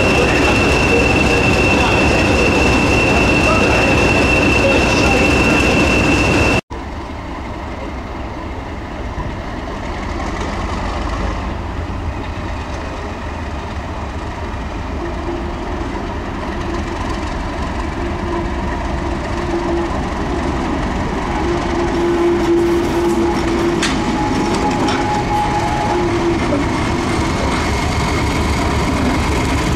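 A British Rail Class 20 diesel locomotive running, with a steady high whistle over its engine; the sound cuts off sharply about six seconds in. Then a Class 31 diesel locomotive works along the track, its engine slowly growing louder.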